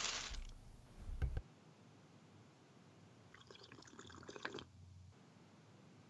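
Faint sloshing and sipping of soup from a paper cup, with stretches of near silence between.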